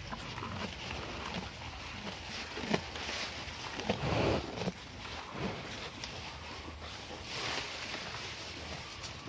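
Cow eating fresh grass close to the microphone: grass rustling and tearing, with irregular crunching as it chews. About four seconds in there is a louder blow of breath from the nostrils.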